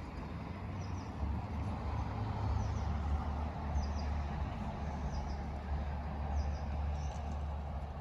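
A steady low rumble that swells about a second in and holds, with faint short bird chirps repeating above it.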